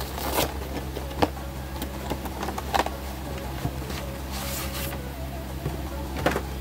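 Handling noises from a product box being picked up and moved: a few sharp knocks and short rustles of cardboard and packaging, over a steady low hum.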